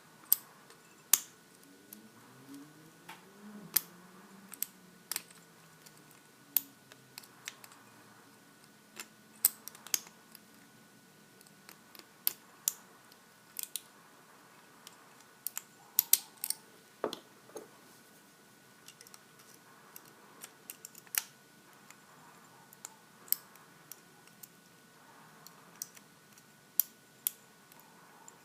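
Lock pick and tension wrench working the pin stack of a Master Lock 410 lockout padlock: irregular sharp metallic clicks and ticks, a few each second, with one duller knock part way through.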